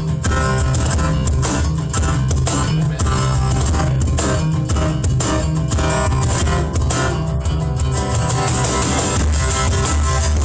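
Live acoustic rock band playing an instrumental stretch with no vocals: strummed guitar over a bass line, with a steady beat.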